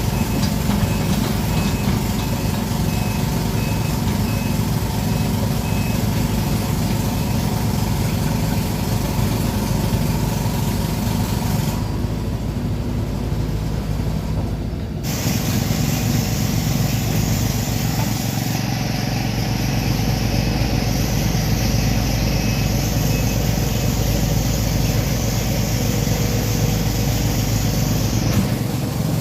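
Sumitomo SH210-5 excavator's diesel engine running steadily, with a warning beeper sounding about twice a second for the first several seconds and again briefly later on.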